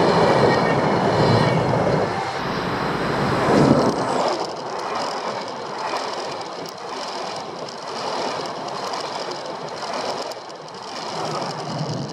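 Passenger trains passing close on a steel arch railway bridge: a loud rush of wheels on rails that peaks about four seconds in, then a steadier clatter of wheels over the rails as a second train runs by.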